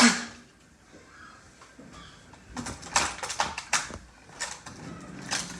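Small hard objects being handled and set down, clattering in a quick run of clicks and taps from about two and a half to four seconds in, with a few lighter taps after.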